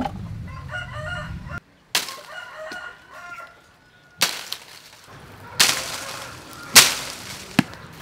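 A rooster crows twice in the background, then come several sharp knocks, the loudest near the end.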